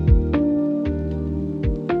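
Instrumental background music with plucked notes over a low bass.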